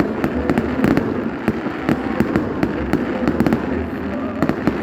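Fireworks salute going off: a dense, irregular crackle of many sharp pops, several a second.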